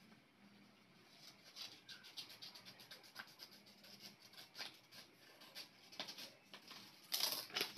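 Scissors cutting paper: a run of quiet snips and paper rustles, with a louder, denser burst near the end.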